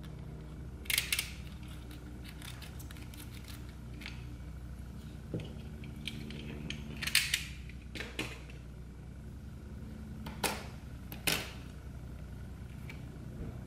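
A strip of duct tape being cut with a utility knife, then peeled and handled on a cutting mat: about five short scratchy bursts spread through, over a steady low hum.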